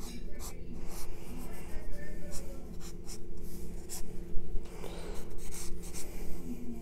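Drawing strokes scratching on paper: a run of quick, short, irregular strokes over a steady low hum.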